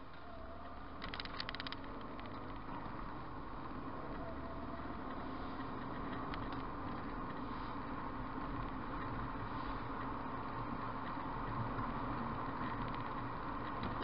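Car driving, heard from inside the cabin: a steady engine and tyre rumble that grows gradually louder. There is a brief rattle about a second in.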